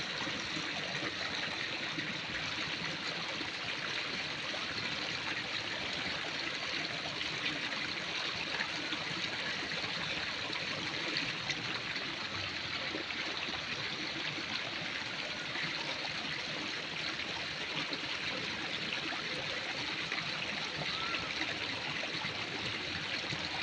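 Steady rush of running water, even and unbroken, with no distinct events.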